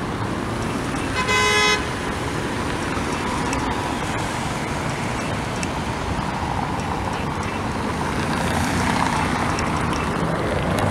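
Steady city road traffic, with cars and vans driving past. A vehicle horn toots once, briefly, about a second in.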